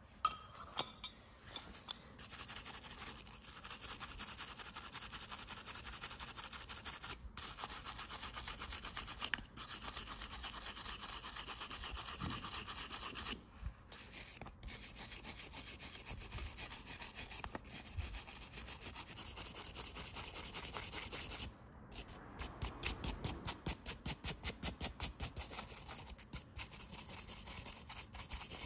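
Steady back-and-forth rubbing strokes on a small object, broken by a few short pauses. Near the end the strokes become distinct pulses, a few a second.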